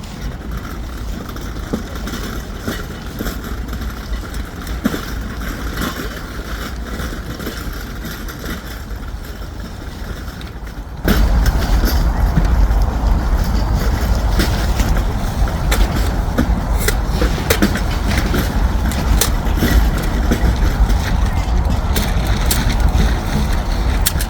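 Steady low vehicle rumble of engine and road noise, with light clicks and rattles, jumping abruptly louder about eleven seconds in.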